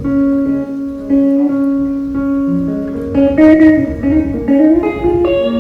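Instrumental music without singing: long held guitar notes, with a melody line climbing in pitch over the second half.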